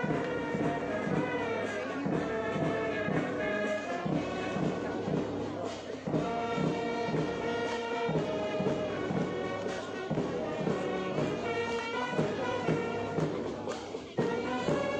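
Military brass band playing a march, with sustained brass melody over a steady drum beat. The music dips briefly twice, about six and fourteen seconds in.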